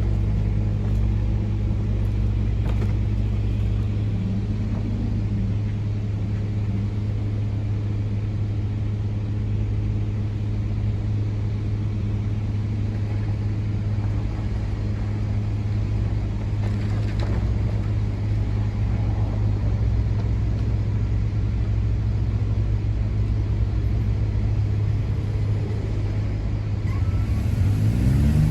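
A vehicle engine running steadily, then rising in pitch as it revs up near the end.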